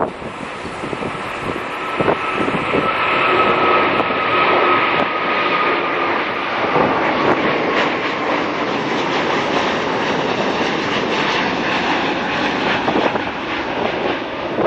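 Airbus A350-1000's Rolls-Royce Trent XWB-97 turbofans at takeoff power as it climbs out overhead: a steady jet roar that swells about two seconds in, with a high fan whine that slowly falls in pitch as the aircraft passes.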